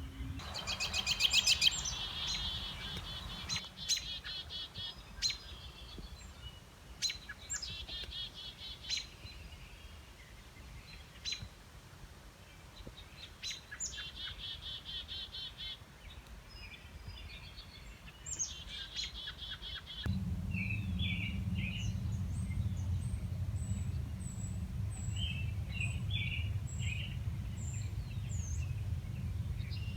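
Wild songbirds singing outdoors: a rapid trill that comes back every few seconds, then from about twenty seconds in shorter chirps over a steady low rumble.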